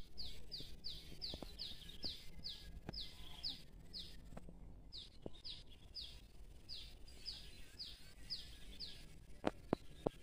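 A bird calling in an even series of short, high notes that each slide downward, about three a second, with a short break midway. A few sharp clicks come near the end.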